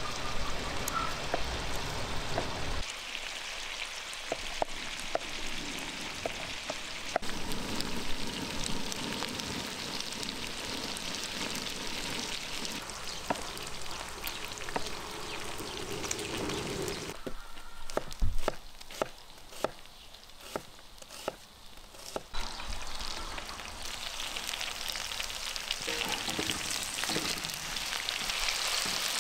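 Chunks of lamb frying in a wide black pan, a steady sizzling hiss, with knife strokes on a wooden cutting board. About two-thirds of the way in, the sizzle drops back for a few seconds and a run of sharp knife chops stands out, then the sizzle returns as the meat and onions are stirred with a wooden spatula.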